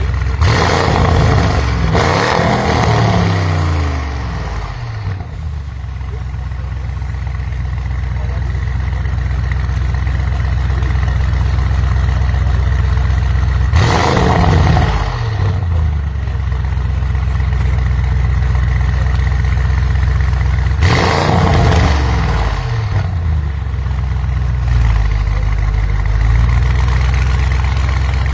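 Audi RS6 Avant C8's twin-turbo V8, tuned to Stage 2 with a Capristo exhaust and the particulate filter deleted, idling with a deep steady burble and blipped on the throttle: twice at the start, again about halfway and once more about three quarters in, each rev falling back to idle.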